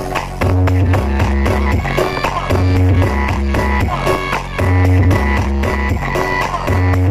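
Loud electronic dance music played through a large carnival sound system, with a heavy bass note that comes back about every two seconds under a plucked, guitar-like melody.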